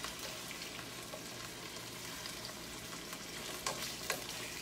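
Boneless chicken thighs sizzling steadily as they sear in butter and olive oil in a skillet, with two light clicks of a utensil against the pan near the end.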